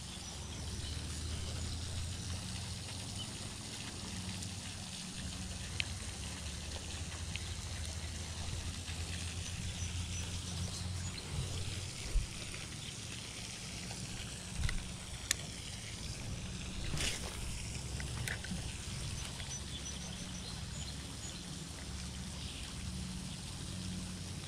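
Steady splashing of a pond fountain, with a spinning reel being wound in and a few light clicks now and then.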